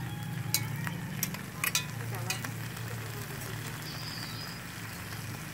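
Pork, sausages and vegetables sizzling on a hot tabletop grill plate, with a few sharp crackles in the first couple of seconds, over a low steady hum.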